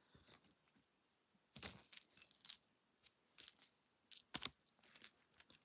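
Small pieces of jewellery, beads and metal bits clicking and clinking lightly against each other as they are handled and sorted: a scatter of short, sharp clicks, several in quick succession about two seconds in and a few single ones later.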